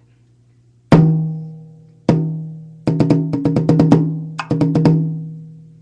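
A tom drum fitted with a plastic RemO dampening ring, likely the 10-inch Pulse rack tom, is struck twice singly, then in a fast run of about eight strokes and a shorter run of about five. Each stroke has a pitched ring that fades over a second or so, cut short by the dampening ring.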